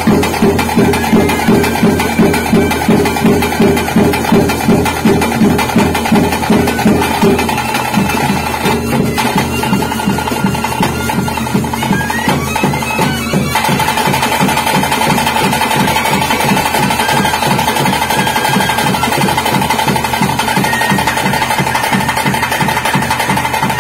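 Traditional ritual music: drums beat a strong, even pulse about twice a second, softening and thickening after about seven seconds. A wind instrument plays over the drums, and from about halfway through it holds a long, steady drone-like note.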